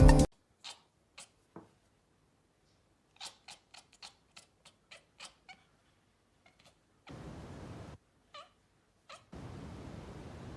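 A cat making a string of short, quiet meows and chirps, most of them bunched together in the middle, with faint background hiss later on.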